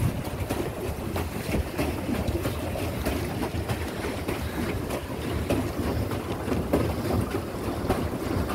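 Wind rumbling on the microphone over water lapping around a swan pedal boat on a lake, with scattered light clicks.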